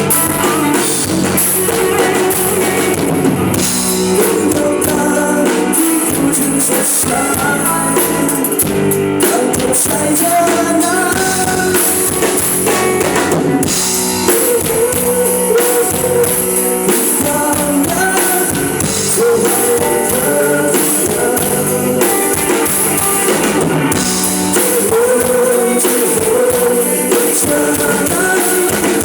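A live rock band playing a song with drum kit, electric guitar and bass guitar, with singing over it.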